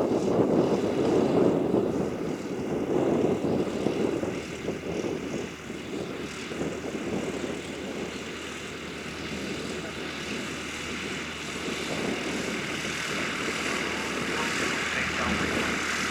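Light propeller aircraft's piston engine running, with a higher, hissing note building over the second half.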